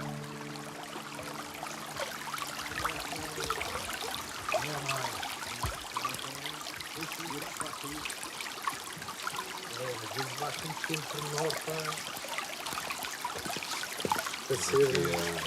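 Running water trickling steadily, with faint low voices now and then.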